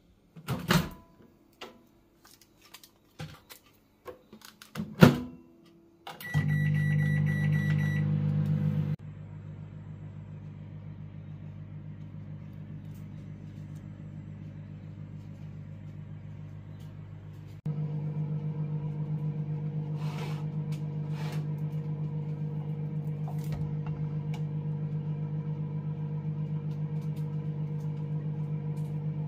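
Crackly clicks of the plastic-film-covered ready-meal tray being handled, then a microwave oven starts about six seconds in and runs with a steady hum. The hum drops quieter a few seconds later and comes back louder about halfway through.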